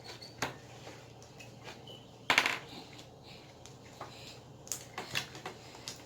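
Scattered light clicks and taps of a utensil on a bowl as slime ingredients are mixed, with one louder clatter about two and a half seconds in.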